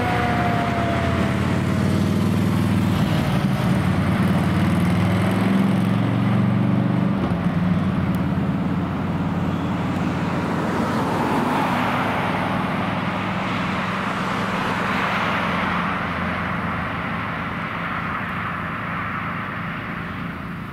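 Quint fire engine pulling away, its siren winding down over the first couple of seconds while the heavy engine runs with a steady low hum. Later the engine gives way to road and traffic noise that slowly fades.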